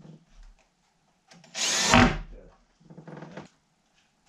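Cordless drill driving small screws through a shelf bracket into a log wall: one short burst lasting under a second about a second and a half in, then a fainter, shorter run about three seconds in.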